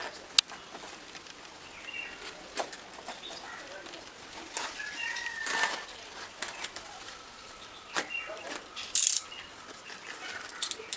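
A cardboard parcel being opened by hand: scattered taps, knocks and rustles of the box, with a short rip-like hiss about nine seconds in. Birds chirp faintly in the background.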